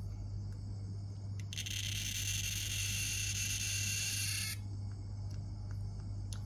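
A cicada buzzing for about three seconds, starting abruptly about a second and a half in and cutting off suddenly, over a steady high insect drone and a low electrical hum.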